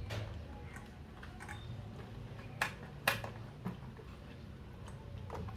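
A few sharp clicks and light knocks from handling a WLtoys 104016 RC monster truck, two clearer ones about half a second apart midway, over a low steady hum.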